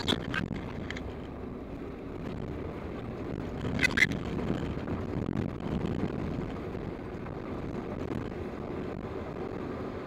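Toyota Land Cruiser driving on a dirt road, heard from inside the cab: a steady low rumble of engine and tyres, sped up to double speed. A brief sharper clatter about four seconds in is the loudest moment.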